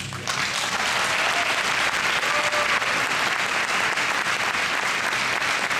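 Audience applause breaking out about a third of a second in, just as the tango music ends, then holding steady and dense.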